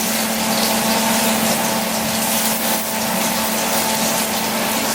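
Steady hissing rush with a constant low hum from the stovetop while food cooks in a pan of oil.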